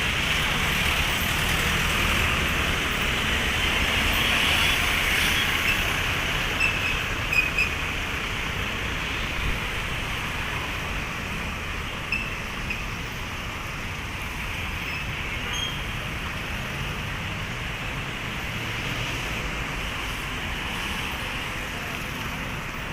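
Street traffic noise: a steady wash of passing vehicles and engines, with a few brief sharp sounds about seven seconds in.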